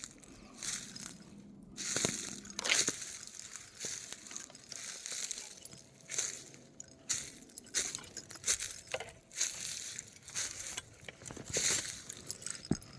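Crunching footsteps of a person walking on a trail, an irregular string of crunches about once every half second to a second.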